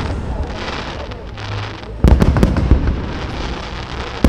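Fireworks display: low rumbling booms fading off, then a sudden volley of several sharp bangs and crackles about halfway through, and another bang near the end.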